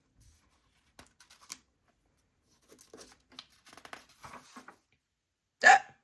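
Soft paper rustling as a picture-book page is turned, then near the end one short, loud 'hic!': a hiccup voiced by the reader.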